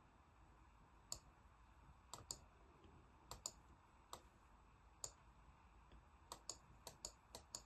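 Faint, irregular clicking at a computer, with single and paired clicks from about a second in that come more often near the end.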